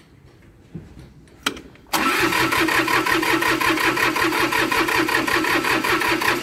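Starter motor cranking a small tractor's cold diesel engine after the glow plugs have been heated, the engine turning over in an even rhythm without catching; the cold is making it hard to start. A couple of light clicks come first, and the cranking cuts in suddenly about two seconds in.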